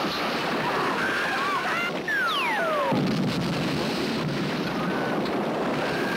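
Film sound of a large fire: a steady roar with high wavering tones over it, and a little over two seconds in, two quick downward-sliding whistles, sci-fi laser sound effects.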